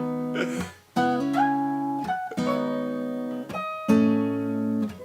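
Acoustic guitar strumming chords between vocal lines. A new chord is struck roughly every second and left to ring.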